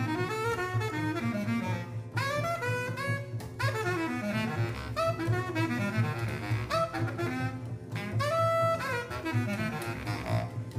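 Bass clarinet playing fast, darting runs in short phrases, with one held note near the end, over a double bass line: a free-improvised jazz duo.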